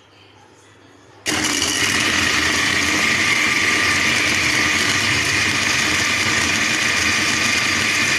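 Electric food chopper switched on about a second in and running steadily with a motor whine, blending onion, tomato and green chillies into a paste.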